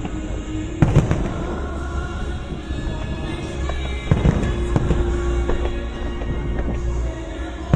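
Fireworks bursting, with a sharp bang about a second in and a cluster of bangs and crackles around four to five seconds in, over music with held notes.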